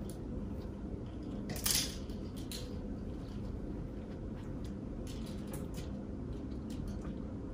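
Clothes and hangers being handled while sorting a closet: soft rustling and a few light clicks over a steady low room hum, with one brief, louder rustle a little under two seconds in.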